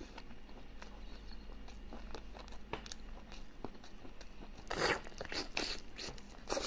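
A person eating close to the microphone, biting and chewing with scattered small mouth clicks and a few louder bites near the end.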